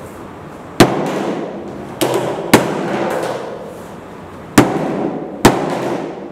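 Hammer blows on an OUKITEL K4000 Lite smartphone lying on a wooden table: five sharp strikes, two close together about two seconds in and two more near the end, each ringing on for about a second.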